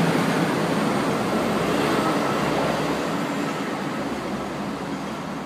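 A fire-service light rescue unit's engine running, its noise fading steadily, as of the vehicle pulling away out of the station.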